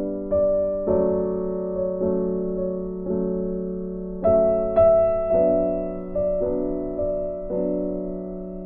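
Background music: slow, gentle piano chords, each struck and left to fade, a new one about every half second to a second.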